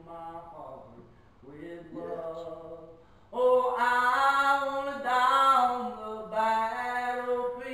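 A man singing a slow gospel hymn, holding long notes; the singing is soft at first and swells much louder about three seconds in.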